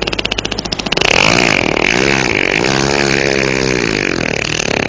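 A man imitating a motorcycle being started with his mouth: a rapid sputter, then a wavering engine-like drone that rises and falls in pitch, acting out an engine that will not catch.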